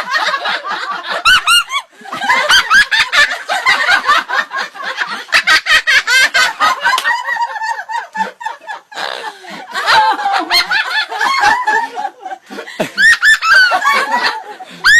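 Long stretch of loud laughter, with short breaks about two seconds in and again near thirteen seconds.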